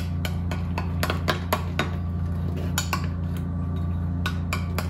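Metal spoon clinking and scraping against a small glass bowl while stirring a mayonnaise dip, in quick irregular taps. A steady low hum runs underneath.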